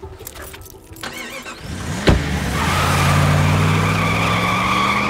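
A sharp bang about two seconds in, then a car engine revving and accelerating, its pitch rising steadily as the car pulls away.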